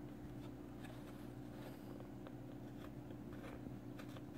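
Faint, scattered clicks and scrapes of a small metal rebuildable tank atomizer being screwed together and handled, over a steady low hum.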